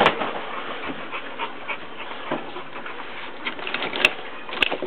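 Rummaging through clutter on a workbench: rustling and light clattering of tools and small parts, with two sharp clicks near the end.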